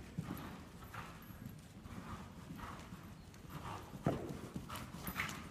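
Hoofbeats of a horse cantering on a lunge line over an arena's sand footing, a steady rhythm of soft strikes, with one sharper knock about four seconds in.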